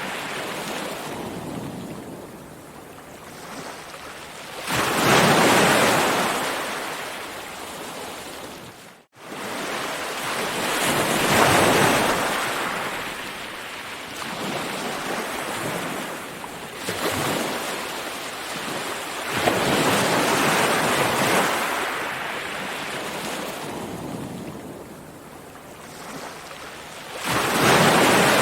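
Ocean waves rolling onto a shore, each surge of surf swelling and then washing back every few seconds. A split-second gap in the sound comes about nine seconds in.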